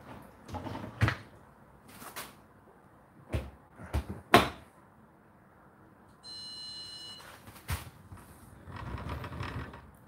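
Whirlpool dishwasher's racks being pushed in with several clacks, then the door shut with a loud clunk. About two seconds later the control panel gives one electronic beep lasting about a second as a button is pressed, followed by a click.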